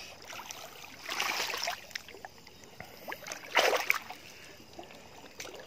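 Water splashing and sloshing, twice: a longer swish about a second in and a sharper one past halfway. A faint steady trickle of running creek water lies underneath.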